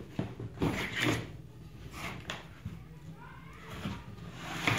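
Cardboard box being opened by hand: the lid and flaps rustle, scrape and knock a few times, with a short wavering squeak of cardboard rubbing about three seconds in.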